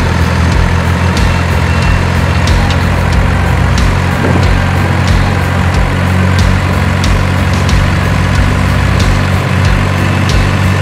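Heavy truck engine idling steadily, a constant low rumble with light ticks over it.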